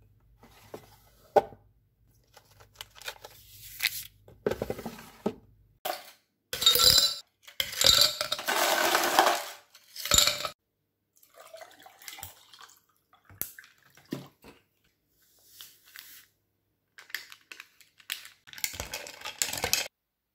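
A clear plastic drawer being pulled open, then ice cubes clattering into a tall glass for about four seconds, the loudest part. Scattered light clinks and taps of dishes and a spoon follow.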